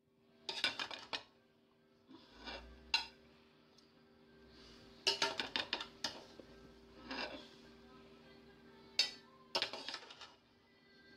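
Metal serving spoon scraping and clinking against an aluminium cooking pot and a plate while rice is ladled out, in short bursts of knocks every couple of seconds.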